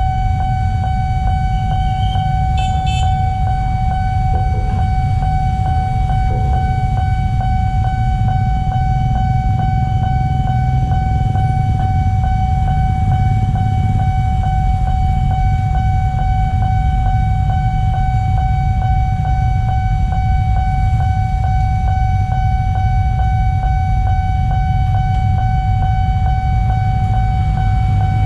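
Railway level-crossing warning alarm sounding one steady, unbroken high tone with overtones, over a low rumble.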